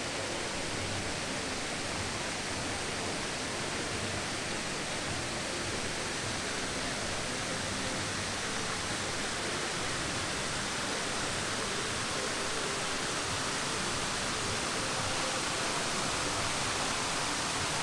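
Steady rush of fountain water splashing into a stone basin, growing slightly louder.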